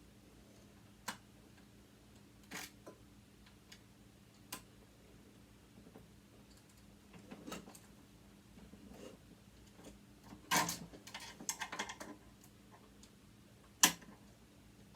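Scattered clicks and clatter of hand tools against the metal parts of a sewing machine being dismantled, with a burst of rattling about ten and a half seconds in and one sharp click near the end.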